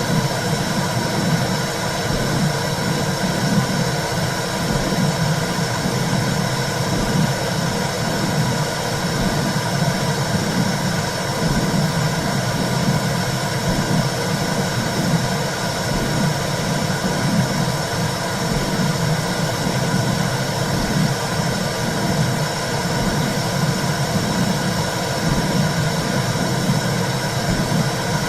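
Womb sound: a steady low whooshing rumble of blood flow, pulsing in a regular, heartbeat-like rhythm.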